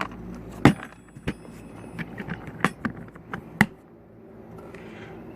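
Small items being handled in a tackle box used as a toolbox: a series of sharp clicks, clacks and metallic clinks from its lids, compartments and small tools, with a few louder knocks.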